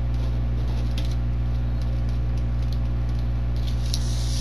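Steady low electrical hum of a room recording, with faint scratches and light taps of a pen signing a paper form on a table. A soft rustle of clothing comes near the end as the signer sits back.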